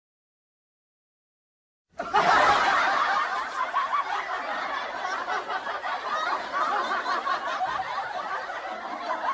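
Laughter sound effect: many people laughing at once, starting suddenly after about two seconds of silence and running on, slightly fading.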